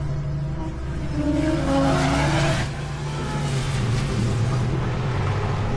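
Motors and propellers of a Helion 10 ten-inch FPV quadcopter whirring in flight, a steady hum whose pitch shifts with the throttle. It grows louder, with the pitch rising and falling, about one to two and a half seconds in.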